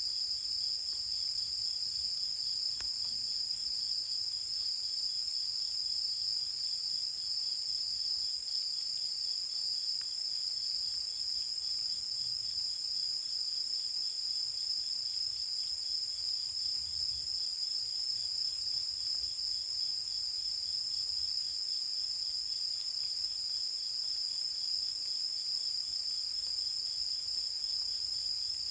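A night chorus of countryside insects: a steady high-pitched trilling that runs on without a break, with a fainter, rapidly pulsing call beneath it.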